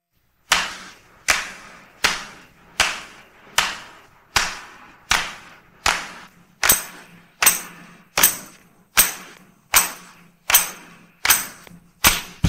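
Isolated 1960s studio percussion track: a single sharp backbeat hit about every three-quarters of a second, each ringing out briefly. From about six and a half seconds in, a bright metallic jingle rides on each hit.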